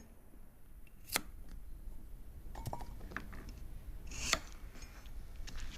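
Kitchen prep handling sounds as garlic cloves are dealt with: a sharp knock about a second in, a few small clicks, and a short scrape a little after four seconds in.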